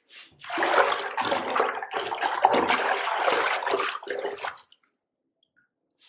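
Bathwater being swished and churned by hand in a tub, a rushing, splashing sound that stops abruptly about four and a half seconds in.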